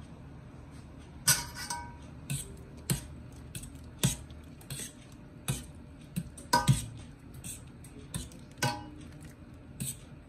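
Metal spaghetti server clinking and scraping against the side of a stainless steel pot while stirring thin pasta in water: about a dozen irregular clinks, some ringing briefly, starting about a second in.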